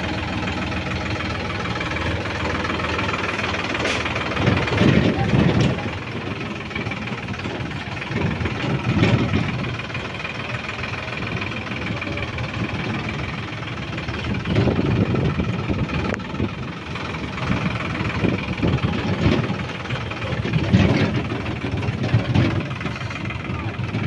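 Sonalika 47 tractor's diesel engine running steadily, rising in loudness and deepening briefly every few seconds.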